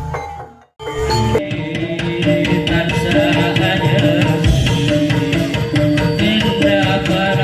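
Topeng Ireng accompaniment band playing through the sound system during a sound check: a melody of held notes over a steady drum beat. An earlier piece fades out and breaks off, and after a brief gap the music starts just under a second in.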